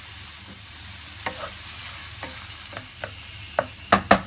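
Onions, tomatoes and spices sizzling steadily in a non-stick frying pan while a wooden spatula stirs them, knocking and scraping against the pan from about a second in, several times, loudest near the end.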